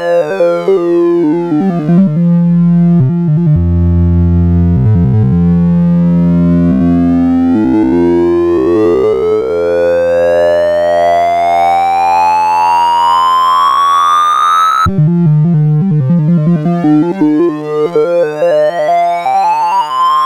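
Computer-generated synthesizer tones of a sorting-algorithm sonification, each tone's pitch following the array values being accessed. A falling sweep and low sustained notes give way to a steady rise in pitch, which cuts off abruptly about 15 s in. A rapid jumble of pitches follows.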